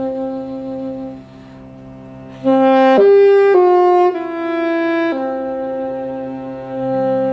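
Saxophone and cello duet. The saxophone holds a long note that fades away about a second in, then comes back louder with a short phrase of four or five notes and settles on another long held note. A low cello note sustains underneath.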